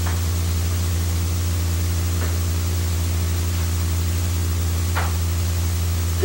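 Steady low electrical hum with constant hiss from an old home-video recording, with two faint short soft sounds about two and five seconds in.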